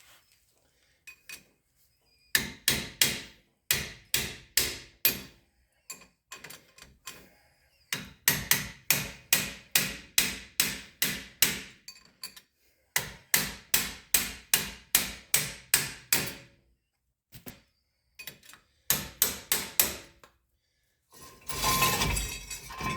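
Hammer blows on a Ford F-350's rear axle and brake assembly while the axle is being pulled, coming in quick runs of about three strikes a second with pauses between. A short scraping rumble follows near the end.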